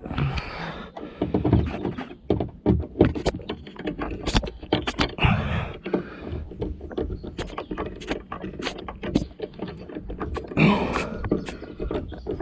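Plastic interior trim and clips being handled and pressed into place: a busy run of irregular clicks, knocks and rattles with short scraping sounds between them.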